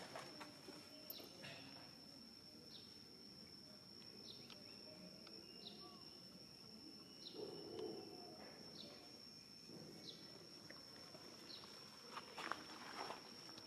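Faint outdoor ambience: a steady high insect whine with a short falling chirp repeated about every second and a half, and rustling steps on the ground near the end.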